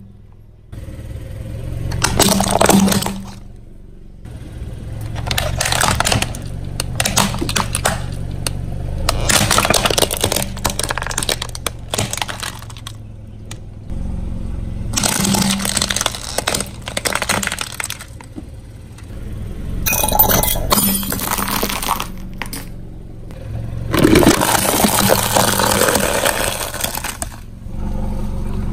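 Car tyre rolling over and crushing hard plastic toys and plastic food containers: several bursts of cracking, snapping and splintering plastic, each lasting a second or a few seconds, with short quieter gaps between, over a steady low hum.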